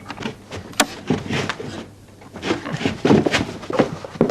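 A run of irregular knocks, clunks and bumps as a heavy machine is shifted and handled.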